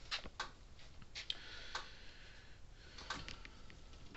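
Gallagher M800 electric fence energizer clicking faintly with each output pulse, a series of sharp ticks about a second or so apart, some in close pairs. It is pulsing normally, the sign of a working unit after repair.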